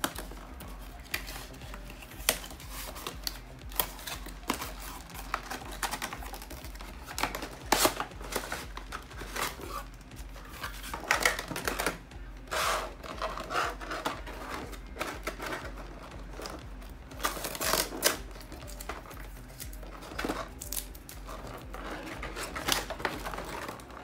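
Cardboard box and clear plastic blister tray being handled and opened: scattered sharp clicks, taps and crinkles of plastic and card, louder now and then.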